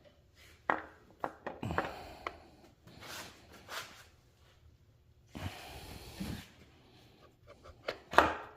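Scattered metal clicks and knocks as a cam sprocket and its holding tool are handled on an engine's camshaft, the loudest a sharp click near the end. A short hiss lasting about a second comes in the middle.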